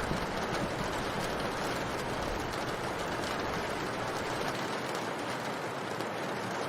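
Steady rain, a dense even hiss with faint scattered drop ticks. The low tail of a thunder rumble dies away about four and a half seconds in.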